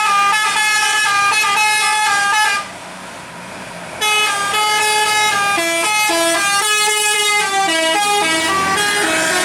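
Bus 'telolet' musical air horn playing a tune of quick, stepped held notes, breaking off for about a second and a half a couple of seconds in before starting up again.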